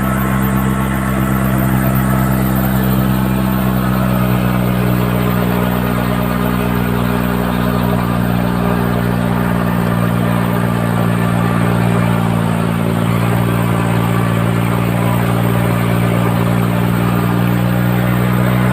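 Tractor engine running steadily at an even speed, with no revving.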